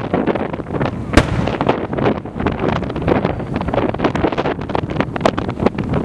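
Aerial fireworks going off in a dense run of bursts and crackles, with one sharp loud bang about a second in.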